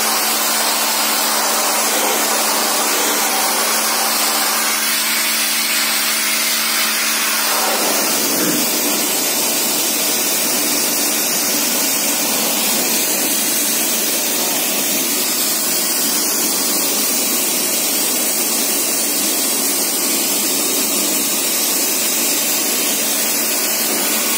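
High-pressure washer jet spraying water in a steady, loud hiss. The washer's motor hums underneath for about the first third, then its hum drops out while the spray goes on.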